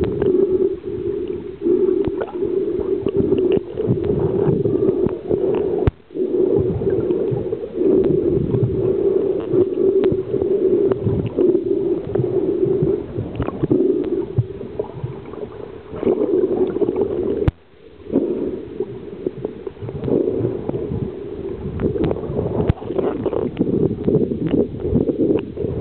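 Water gurgling and sloshing on and off without a break, with two brief drop-outs, one about six seconds in and one at about eighteen seconds.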